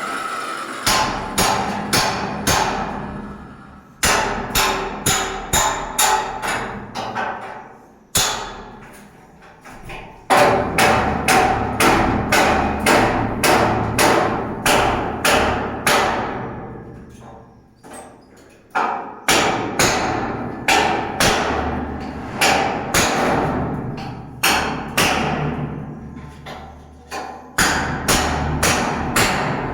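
Hammer blows on metal, each strike ringing on after it, in runs of about two blows a second broken by short pauses.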